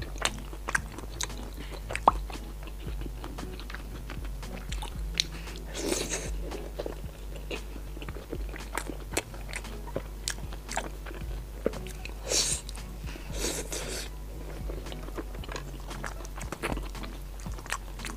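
Close-miked biting and chewing of deep-fried skewered food, a steady run of sharp crunching clicks with a few longer crackly chews around the middle.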